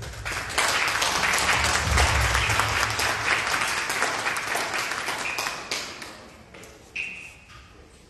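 Small audience applauding in a hall: the clapping starts about half a second in, holds for around five seconds, then dies away.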